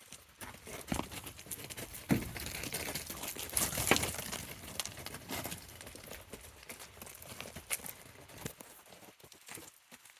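Young goats playing, their hooves clattering and scuffling in quick irregular steps, with louder knocks about two and four seconds in.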